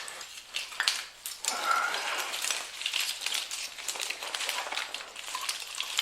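An old car wiring harness being handled: wires, plastic connectors and loom rustling and crinkling, with many irregular light clicks and crackles.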